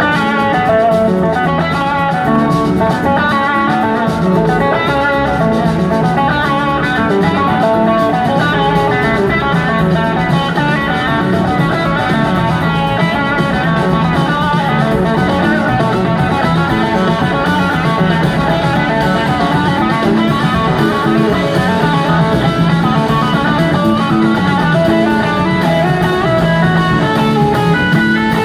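Live blues-rock band playing an instrumental passage: electric guitars carry quick lead lines over a steady rhythm from bass and drum kit, at an even, loud level throughout.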